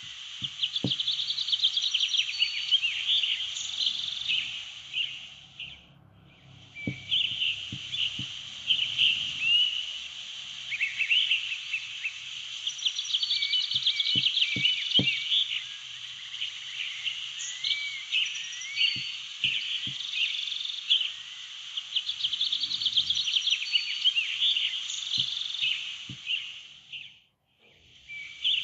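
A nature-ambience background track of birds chirping over a dense chirping bed. It fades out and back in about six seconds in and again near the end. A few faint short taps sit underneath.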